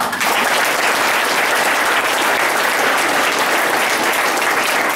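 Audience applauding, a dense steady clapping that starts suddenly and dies away near the end.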